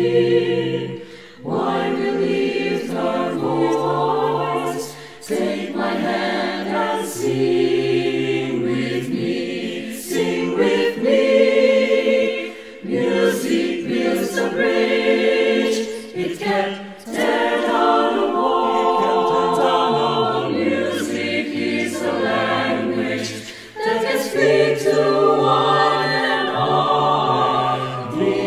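Mixed soprano, alto, tenor and bass voices singing in harmony as a choir, the separately recorded voices mixed together. They sing in phrases with brief breaks between them.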